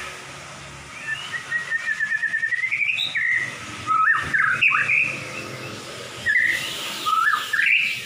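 Caged white-rumped shama (murai batu) singing: a fast run of chirps rising in pitch, then loud swooping whistles, and short rising phrases near the end.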